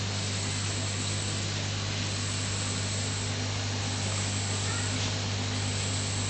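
Aquarium pump running: a steady low electrical hum with a constant hiss of air and water over it.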